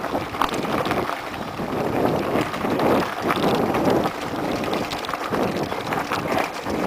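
Mountain bike rolling fast down a rocky, gravelly trail: tyres running over loose stones, with many small rattling clicks from the bike and wind buffeting the microphone.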